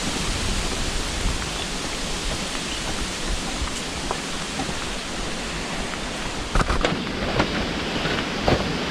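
Steady wind buffeting the microphone, a rushing noise with a low rumble underneath. A few light knocks come near the end.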